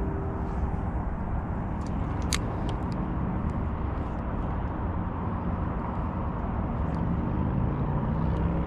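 Steady wind noise rumbling on the microphone, with a few faint light clicks.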